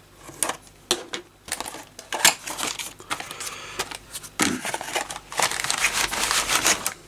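Cardboard model-kit box being opened and its contents handled: irregular taps, scrapes and rustling, busiest in the last couple of seconds.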